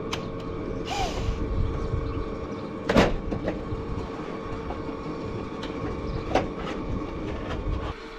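A metal door panel being worked loose and lifted off the side of a tin coop: scraping and rattling, with a sharp bang about three seconds in and a smaller knock about six seconds in, over a steady low rumble that cuts off near the end.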